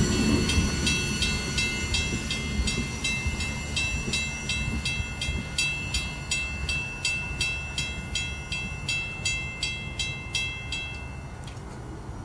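Railroad crossing bell ringing in fast, even strikes, while the rumble of the tail end of a CSX freight train passing over the crossing fades away. The bell stops near the end.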